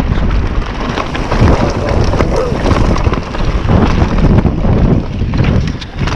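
Wind buffeting a GoPro's microphone on a mountain bike riding downhill, with the tyres rolling over gravel and dirt and many small clicks and rattles from the bike.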